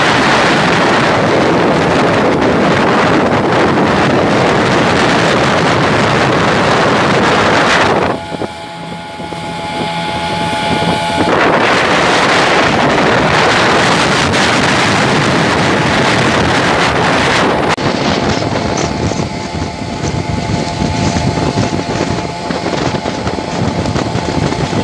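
Motorboat engines running at speed under heavy wind buffeting on the microphone, with water rushing along the hull. The wind drops for a few seconds about eight seconds in, letting a steady engine hum come through, then returns.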